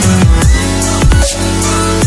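Electronic dubstep-style background music with a heavy kick drum about twice a second under sustained synth tones.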